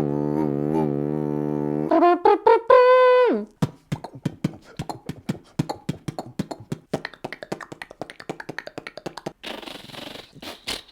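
Vocal sound effects made with the mouth. A droning didgeridoo imitation runs for about two seconds, then comes a few trumpet-like held notes, then a long run of quick percussive mouth clicks and pops, ending in a short hiss.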